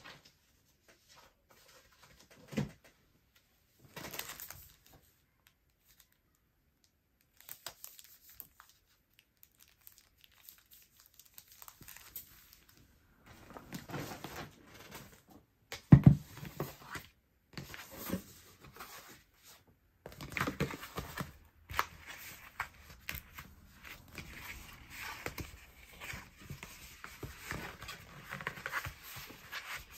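Clear plastic sleeve and sticker sheets crinkling and being peeled and handled, with a single loud thump about halfway through. Then a flat brown cardboard mailer box is unfolded and its flaps folded, a denser run of crinkling and scraping.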